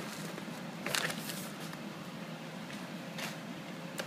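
Faint handling of packaging and paper: short rustles about a second in and again around three seconds, with a light click near the end, over a steady low hum.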